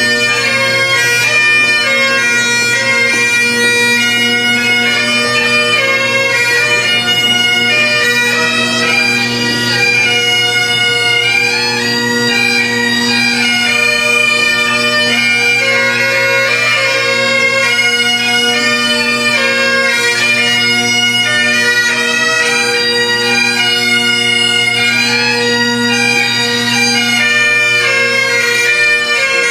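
Bagpipes playing a melody over unbroken steady drones.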